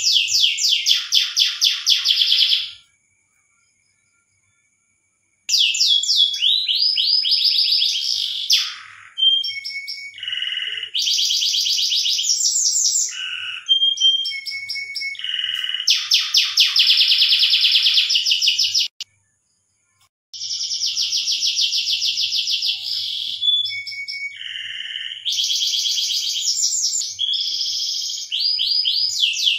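Domestic canary in breeding condition singing its mating song: fast rolling trills and chattering phrases. The song stops twice, for a couple of seconds about three seconds in and briefly near twenty seconds.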